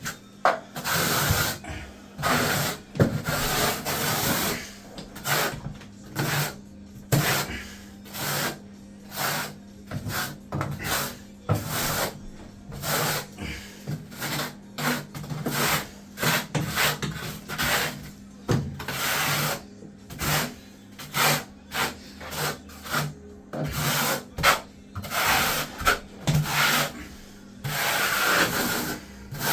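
A hand roller rubbing back and forth over decoupling matting to press it into the tile adhesive: repeated scraping strokes, about one or two a second, some longer than others.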